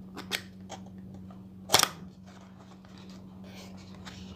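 Paperboard cream carton handled and its tuck flap pulled open: a few light clicks and crackles of card, the loudest about two seconds in, over a steady low hum.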